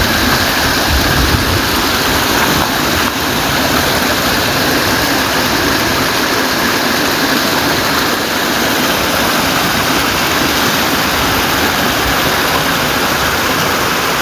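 Steady loud rush of water: heavy rain and storm runoff flowing off the road onto farmland, with a few low rumbles in the first second or two.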